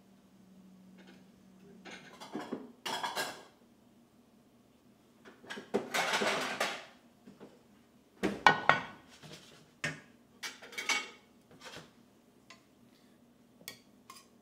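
A metal skillet, utensils and a plate clinking and clattering in irregular bursts as steak is lifted from the pan and served.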